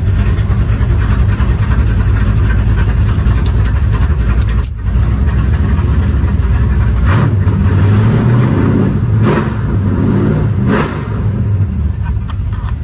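Car engine running loud as the car is driven and accelerated, with a brief dip about five seconds in and a few short surges in the second half.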